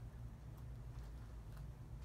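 Quiet room tone: a low steady hum over faint hiss, with no distinct sound events.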